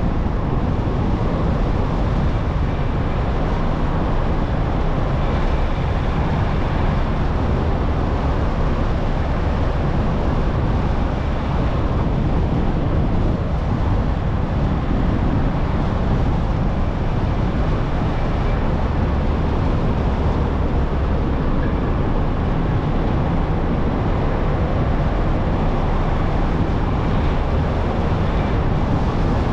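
Car driving along a paved road: a steady, deep rumble of tyre and road noise mixed with wind.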